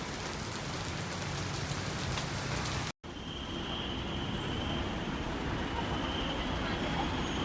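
Steady hiss of rain. After an abrupt cut it gives way to street traffic noise with a constant high whine over it and a brief high-pitched squeal near the end.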